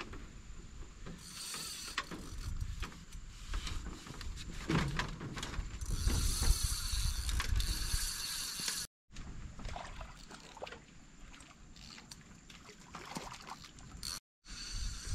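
Spinning fishing reel being wound, its gears whirring and clicking, cut off briefly twice.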